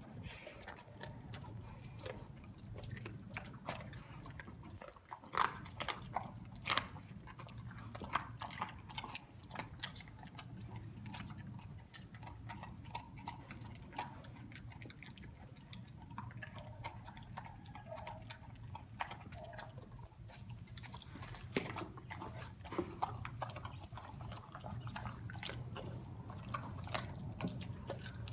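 Doberman eating raw meat and egg from a stainless steel bowl: wet chewing and licking with irregular sharp clicks, over a steady low hum.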